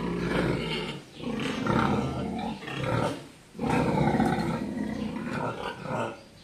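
Sows in gestation stalls vocalizing loudly in three long stretches, broken by short pauses about a second in and a little past three seconds.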